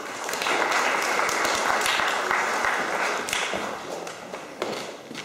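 Audience applauding: dense clapping that starts about half a second in and fades away over the last couple of seconds.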